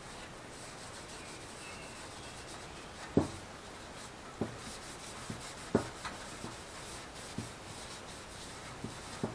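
Rubbing and wiping while dust is cleaned off a freshly sanded lawn-tractor dash panel, with a few light knocks spread through the middle, the first the loudest.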